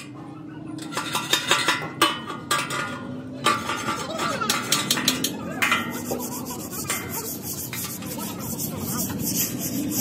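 Sharp metallic knocks and clanks, ringing briefly, from a welded steel tractor front blade as it is handled. About six seconds in they give way to a steady scratchy rubbing of the steel surface by hand.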